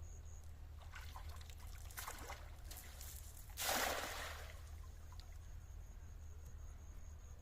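Water trickling and splashing, with one louder splash about halfway through that dies away over about a second.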